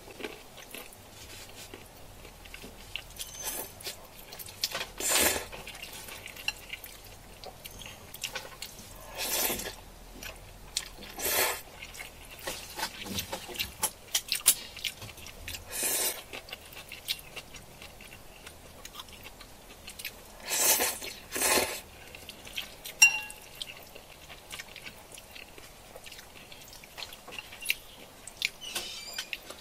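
Close-miked eating: chewing and biting, with small clicks of utensils and dishes and several louder short bursts of mouth noise spread through.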